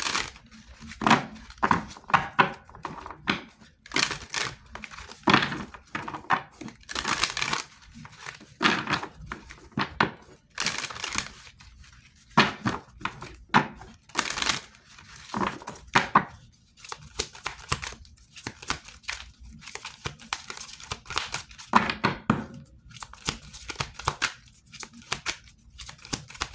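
A deck of oracle cards being shuffled and handled by hand: irregular rustling swishes of card stock sliding against card, about one a second.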